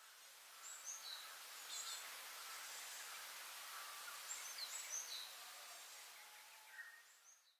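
Faint outdoor ambience: a few short, high bird chirps over a steady hiss, fading out near the end.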